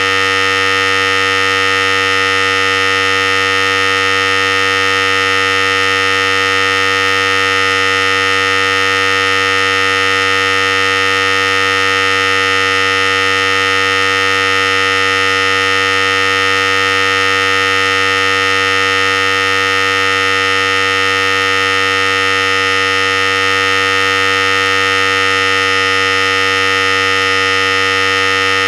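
Philips Series 5000 electric clippers running steadily: an even, unchanging buzz.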